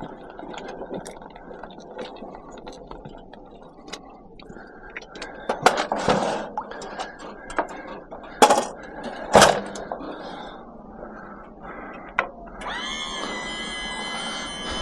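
Knocks, clunks and scrapes as a heavy ceramic sink is manoeuvred onto a trolley, with several sharp clunks around the middle. Near the end a steady pitched mechanical hum with many overtones sets in.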